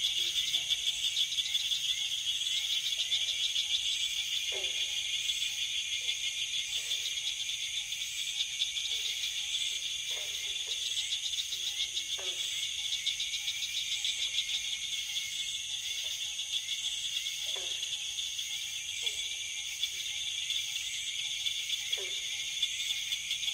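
Night chorus of insects trilling steadily in a high, fast-pulsing drone, with short downward-sliding frog calls every one to two seconds.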